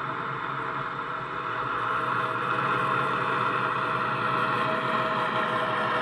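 Class 70 diesel locomotive engine sound (GE PowerHaul V16) from a Coastal DCC sound decoder, played through the model's small EM1 speaker. The engine sound steps up and gets louder about two seconds in as the locomotive moves off.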